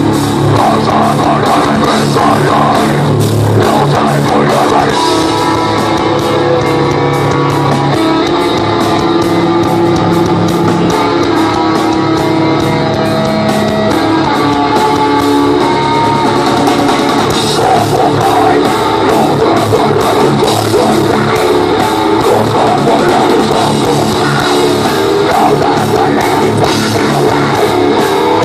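Live groove-metal band playing loud through a PA: distorted electric guitars, bass and drum kit, heard from the crowd in front of the stage.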